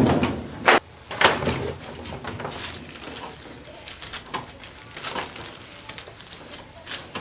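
Sharp knocks and clicks of plastic and metal washing machine parts being handled and unfastened, three loud knocks in the first second and a half, then lighter clicks and rattles.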